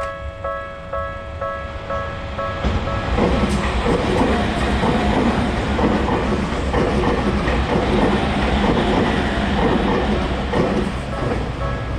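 Japanese level-crossing warning bell ringing about twice a second. A Tokyu Toyoko Line train then passes through the crossing, its wheels clattering over the rail joints and drowning out the bell. The bell comes back into hearing near the end.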